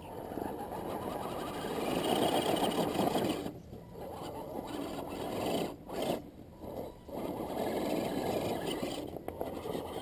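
Axial SCX10 Honcho RC rock crawler's electric motor and geared drivetrain running under load as it climbs rock, with the throttle let off briefly several times.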